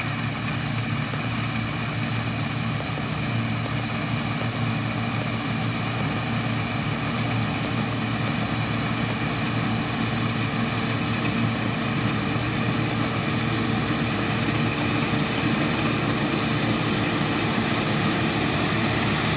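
Claas Medion 330H combine harvester running while harvesting wheat: a steady mechanical drone with several held tones, growing slightly louder as the machine comes closer.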